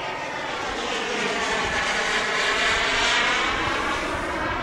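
Turbine engine of a Skymaster Viper radio-controlled model jet, an Evojet 90, running as the jet flies past overhead. The sound grows louder to a peak about three seconds in, then begins to fade.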